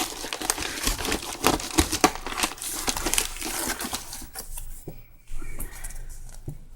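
Packaging crinkling as it is handled and opened: dense crackling for about four seconds, then quieter, sparser rustling.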